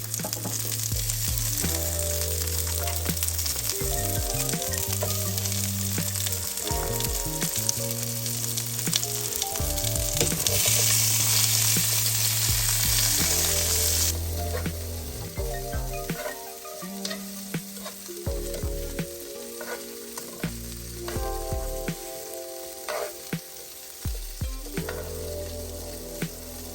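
Sliced red and green peppers and onion sizzling in a frying pan as they begin to cook down. The sizzle is strongest in the first half and drops off about halfway through, over a low background music line.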